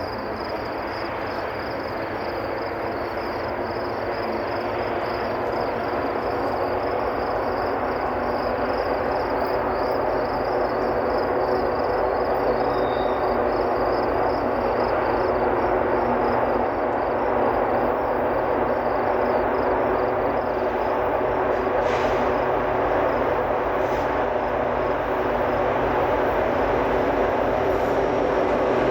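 Loaded coal train rolling by, a steady rumble of wheels on rail that grows gradually louder.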